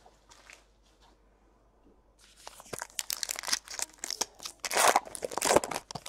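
A foil baseball card pack wrapper being torn open and crinkled by hand, starting about two seconds in, with crackling tears that are loudest near the end as the wrapper is pulled away from the cards.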